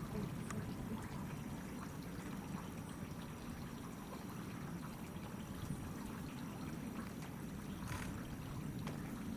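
Water running steadily, with a few faint clicks.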